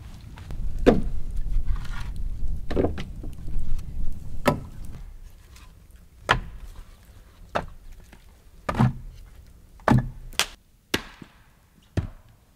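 Pieces of split firewood knocking together as they are gathered and stacked: about ten sharp wooden clunks, spaced a second or two apart.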